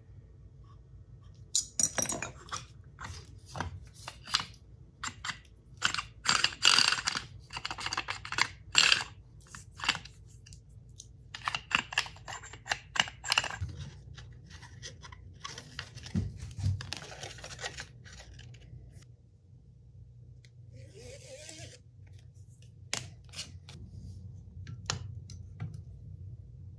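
Metal parts and hand tools being handled on a workbench: a dense run of clicks, clinks and rustles for the first half, then only a few scattered ticks.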